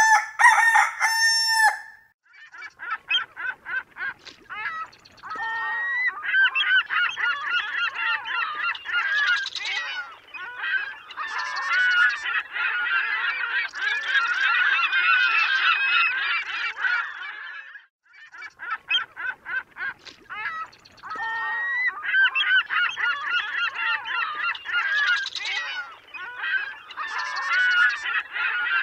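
A large flock of birds calling over one another in a dense, continuous chorus, opening with a short sharp call. The chorus drops out briefly about two seconds in and again about eighteen seconds in, and the same stretch plays twice, as a loop.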